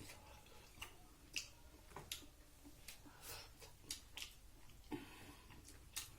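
Faint eating sounds: about a dozen soft, irregular clicks and smacks of chewing.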